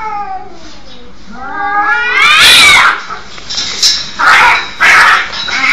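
Cats caterwauling in a fight: a drawn-out yowl sliding down in pitch, then a rising yowl that breaks into a loud screech about two seconds in, followed by three or four short harsh cries.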